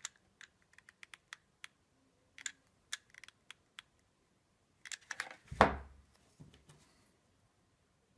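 Laser-cut parts and small hardware being handled and fitted together: a run of light, irregular clicks and taps, then a louder knock with a brief scrape about five and a half seconds in.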